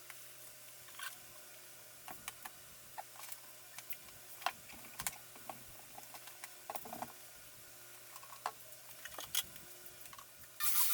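Scattered light clicks and taps, irregular and one to three a second, from hands working on the parts of a desktop PC as it is taken apart, over a faint steady hum.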